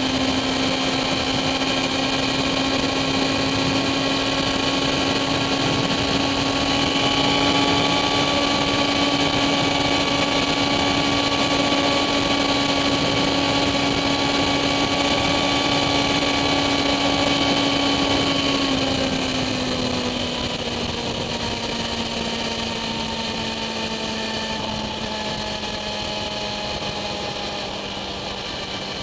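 Kawasaki ZX-10R inline-four engine running at steady high revs at motorway speed, under a steady rush of wind. A little past halfway the engine note sinks smoothly to a lower pitch as the throttle is eased, then holds steady.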